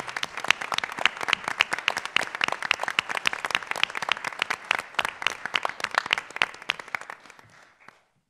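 Audience applauding, dense clapping that tapers off and dies away near the end.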